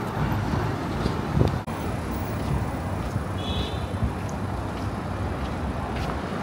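Gusty wind buffeting the microphone, over a steady background of city street traffic. A brief high-pitched chirp sounds about three and a half seconds in.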